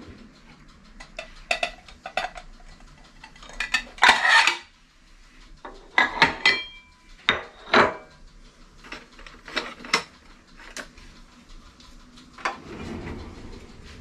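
Ceramic bowls and plates clinking and knocking together as they are lifted out of a pull-out dish-rack drawer and set on the counter, with utensils and chopsticks rattling. It is a series of separate clinks, some ringing briefly, with a longer clatter about four seconds in.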